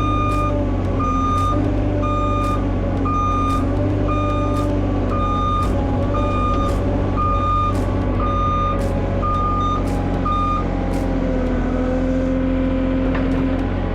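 A truck's reverse-warning beeper sounding about once a second as the truck backs up, stopping about ten seconds in, over the steady run of the truck's engine.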